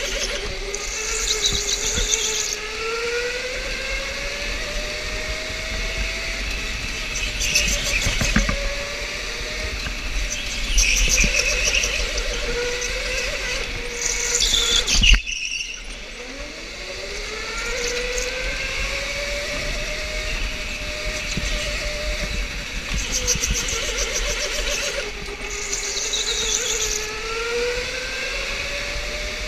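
Electric go-kart motor whining, its pitch rising and falling with speed, with the tires squealing in short bursts through the corners several times. About halfway the sound briefly drops out, then the whine climbs again from low pitch.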